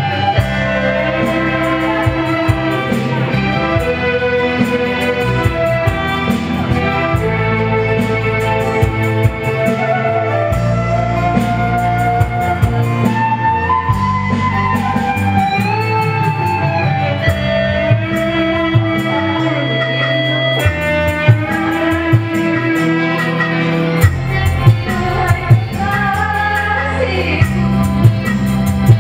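A song sung into a microphone over guitar-led backing music, coming through a sound system.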